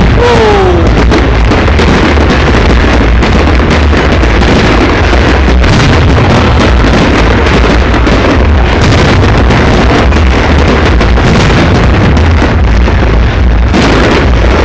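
New Year's fireworks going off in quick succession: a dense, very loud run of bangs and crackling bursts over a continuous low rumble, with a brief falling whistle just after the start.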